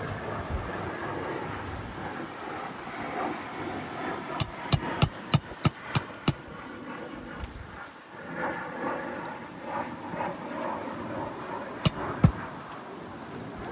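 Roofing hammer striking on an asphalt-shingle roof repair: a quick run of seven sharp blows, then two more near the end.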